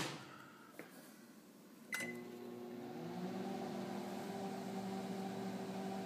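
A 900-watt microwave oven is started at full power about two seconds in: a short beep and a click, then the oven's steady hum as it runs.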